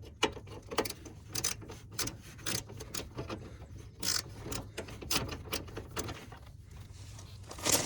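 Small hand ratchet clicking in quick, uneven strokes, turning a 10 mm bolt out.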